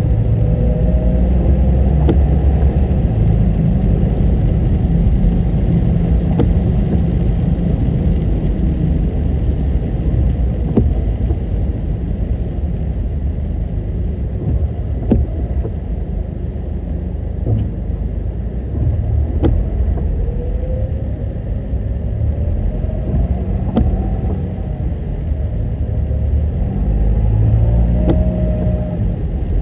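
Car driving along a road: a steady low rumble of engine and tyres, with the engine note rising and falling a little now and then and occasional short clicks.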